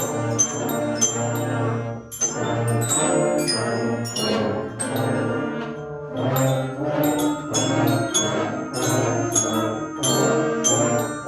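School band playing an ensemble piece with brass carrying sustained chords, and short bright bell-like notes ringing over the top in a steady rhythm.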